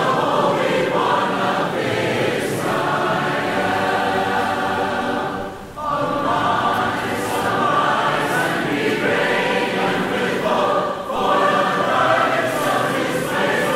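A choir singing a hymn in parts. It finishes one phrase, breaks briefly near the middle, then starts the next verse.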